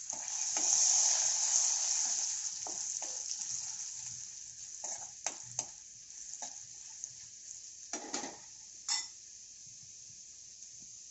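Spice tempering (cumin, mustard seeds, curry leaves, garlic, asafoetida and turmeric) sizzling in hot oil in a kadhai. It swells at the start and dies down over a few seconds, while a spatula stirs and clicks against the pan several times.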